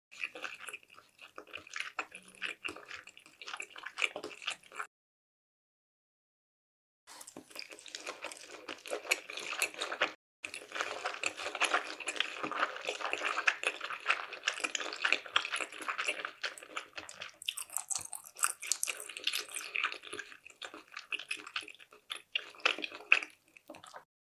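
Close-miked wet chewing of sushi: dense, moist smacks and clicks of rice and raw fish in the mouth. The sound drops to dead silence twice, once for about two seconds and once only briefly.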